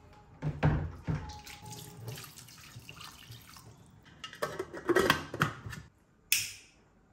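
Clattering and knocking from handling, then a match struck about six and a half seconds in: one sharp hissing flare that fades within half a second.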